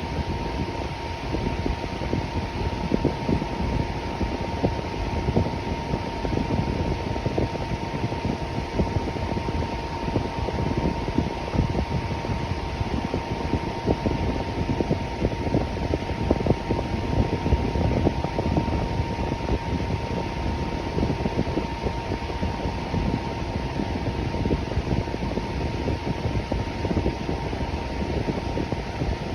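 Electric fan running steadily: an even rush of air with a faint, steady whine riding above it.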